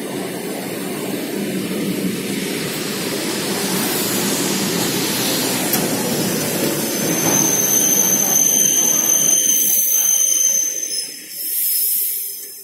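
ED4M electric multiple unit pulling in along the platform, its wheels running on the rails. From about eight seconds in, steady high brake squeal as it slows to a stop, with a short burst of air hiss near the end.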